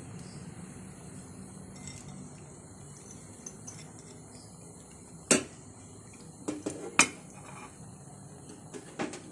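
A few sharp clinks of a bowl against a metal cooking pot, once about five seconds in, a cluster around seven seconds, and once near the end, over a steady low hum.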